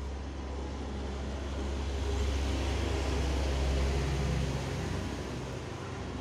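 Steady low rumbling background noise that swells from about a second and a half in and eases off near the end.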